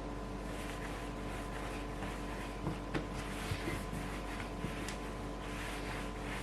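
Steady electrical hum and room noise, with a few faint soft taps and clicks as hands handle bread dough on a work surface.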